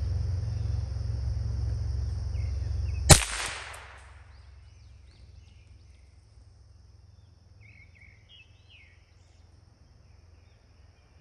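A single rifle shot about three seconds in: one sharp crack with a short echoing tail. Before it, a steady low rumble and a high insect drone; after it, a few faint bird chirps.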